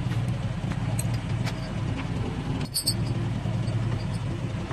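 Truck engine idling steadily, with a few light metallic clinks from a tow chain being handled and hooked on.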